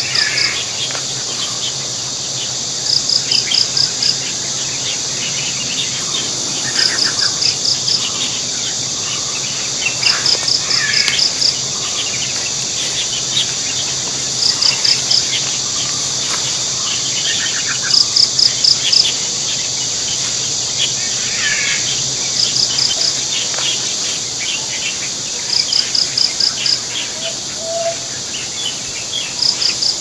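A steady high insect drone, with a chirp of about five quick pulses repeating every three to four seconds, and scattered faint bird chirps.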